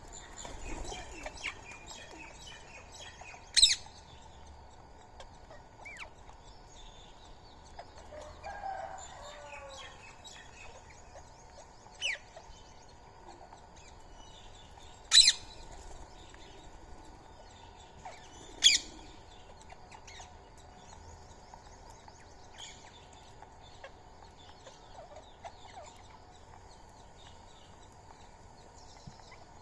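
Indian ringneck parakeets calling: a few short, sharp, high shrieks, the loudest about 4, 15 and 19 seconds in, with faint chirping between. A lower-pitched, falling bird call sounds around 9 seconds in.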